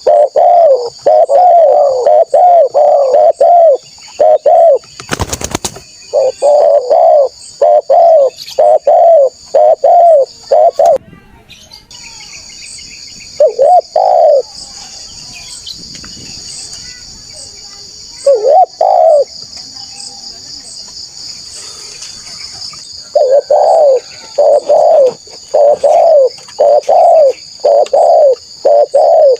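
Spotted dove cooing loudly in quick runs of repeated coos, with pauses between runs, over a steady high-pitched hiss. A single sharp crack about five seconds in.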